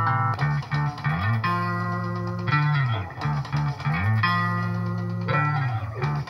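Recorded music played loudly through a homemade class D amplifier driving a bare woofer, with a heavy bass line whose notes slide up and down in pitch.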